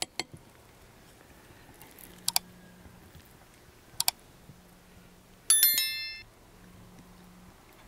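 Mouse-click sound effects, a quick pair about two seconds in and another about four seconds in, then a short bright bell chime near six seconds that rings out and fades: the sound of an on-screen subscribe-and-notification-bell reminder.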